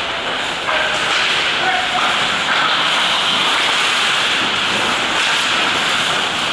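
Ice hockey skate blades scraping and carving across the ice, heard as a steady hiss, with brief faint shouts from players about a second or two in.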